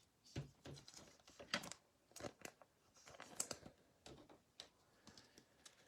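Faint, irregular clicks and light rustling of hands working at a table, handling trading cards and their packaging.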